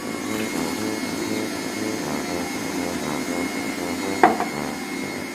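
Electric hand mixer running steadily, beating cupcake batter.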